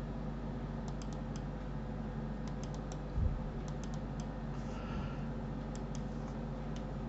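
Computer mouse left button clicking in quick clusters of a few clicks, with a single dull thump about three seconds in, over a steady low electrical hum.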